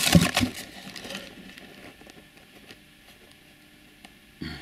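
Plastic bags crinkling and rustling as they are handled in a cardboard box, busiest in the first second, then dying away to faint handling sounds.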